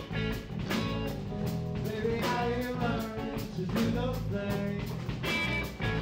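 Alternative-country band playing live: electric guitars over a Gretsch drum kit keeping a steady beat.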